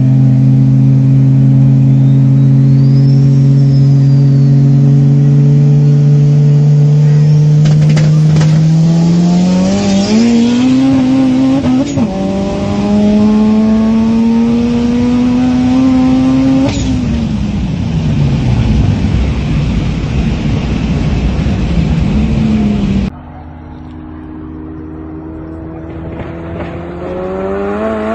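Loud, heavily modified car engine holding steady revs, then accelerating hard with rising pitch, a quick upshift about twelve seconds in and a second pull, then lifting off with revs falling. After a sudden break the engine pulls up in pitch again near the end.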